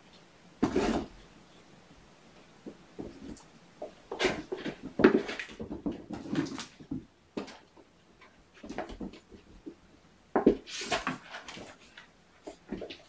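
Kittens at play, chasing and pouncing: flurries of quick thumps, scrabbling and rattling, one short burst about a second in, then a busy stretch from about four to seven seconds in and another from about ten and a half seconds in.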